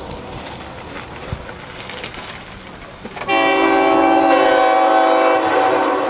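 General Electric GE5HL five-tone air horn sounding its chord. One blast fades away at the start, then a new loud blast starts abruptly about three seconds in and holds for a couple of seconds before tailing off.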